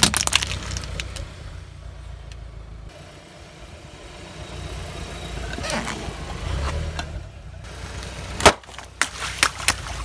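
Car engine running low under a series of sharp cracks and snaps as objects are crushed under a tyre, with the loudest crack near the end followed by several smaller ones.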